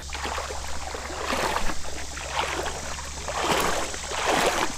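Shallow creek water sloshing and splashing, swelling and easing off several times.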